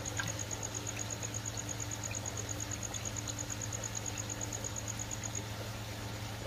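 Submersible pump in a plastic koi tub, running with a steady low hum while water bubbles and churns around its outlet pipes from heavy aeration.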